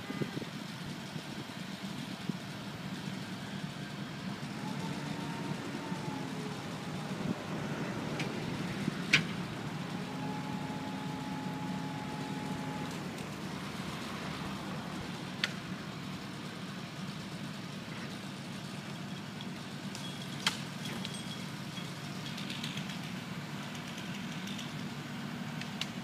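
A mobile crane's engine runs steadily as a low, even hum while it works. A brief steady whine sounds from about ten to thirteen seconds in. Three sharp knocks come at about 9, 15 and 20 seconds in, the first of them the loudest.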